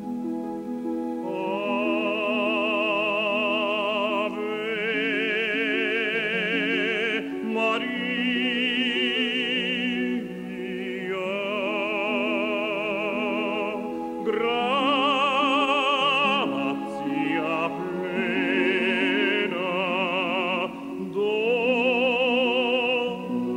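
Operatic solo voice singing long held notes with wide vibrato over an accompaniment, in phrases a few seconds long with short breaths between them.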